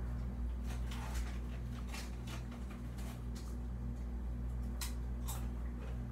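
Steady low hum of a running ceiling fan, pulsing slowly, with scattered light clicks and taps of things being handled.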